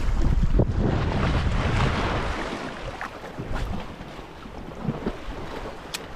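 Wind buffeting the microphone outdoors by the sea, strongest for the first couple of seconds and then easing, with a few small clicks and knocks from handling and one sharp click near the end.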